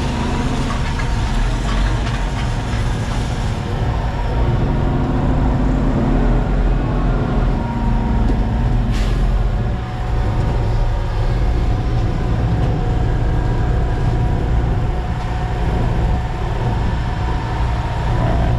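Concrete mixer truck's diesel engine running steadily, with one brief sharp sound about nine seconds in.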